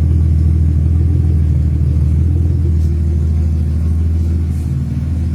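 Chevrolet Omega's exhaust, fitted with a sporty tailpipe tip, rumbling steadily at an even, low engine speed, easing off slightly near the end.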